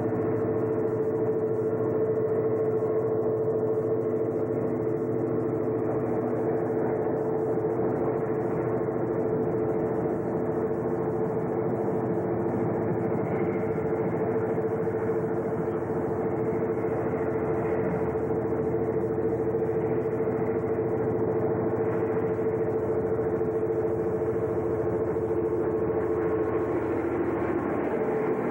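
Diesel passenger locomotives led by a former CN EMD FP9 running as the train moves toward the station: a steady engine drone with a few held tones, easing slightly near the end.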